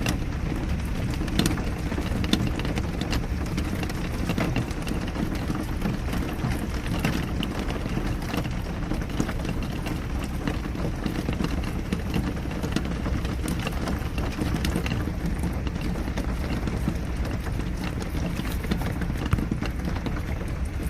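Steady rain falling, with many separate drops striking close by as irregular taps.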